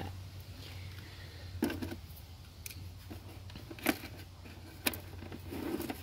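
A few light clicks and rustles of a wiring harness connector and its wire bundle being handled, the loudest click about four seconds in, over a faint low steady hum.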